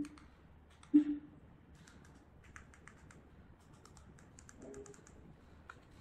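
Buttons on a projector's handheld remote control clicking as they are pressed to step through a menu. There are two louder short presses with a brief low tone at the start and about a second in, then a run of light, quick clicks.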